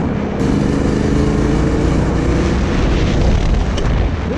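Yamaha Ténéré 700's parallel-twin engine running at a fairly steady throttle while the bike is ridden on a dirt track, with heavy wind noise on the microphone.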